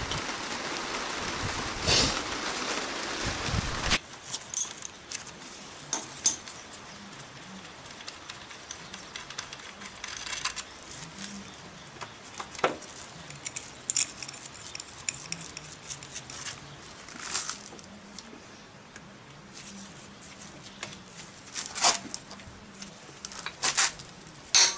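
A steady hiss for the first few seconds cuts off suddenly. Scattered metallic clicks and clinks follow as hand tools, a socket wrench and then a wrench on a long handle, are worked on a motorcycle's engine case.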